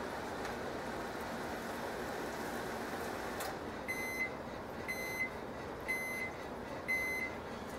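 Microwave oven running steadily, then shutting off about three and a half seconds in as its timer runs out, followed by four short high beeps about a second apart signalling that the cooking cycle is done.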